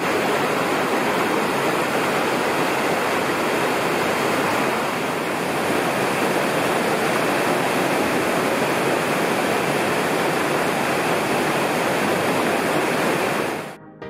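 Waterfall pouring into a pool: a steady, dense rush of falling water that stops suddenly near the end.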